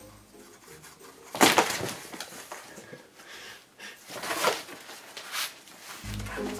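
A kitten scrambling through a cardboard box house: scraping and rustling of cardboard, loudest about one and a half seconds in, with more scuffs around four and five seconds. Background music comes in near the end.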